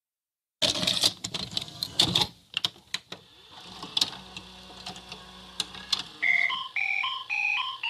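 Glitchy VHS-style static: crackling noise with irregular clicks and clatter. About six seconds in, a simple melody of high, clear notes starts, one note at a time.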